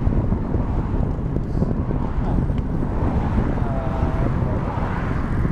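Wind buffeting the microphone of a bicycle-mounted camera as the bike rides along, with rolling road noise underneath.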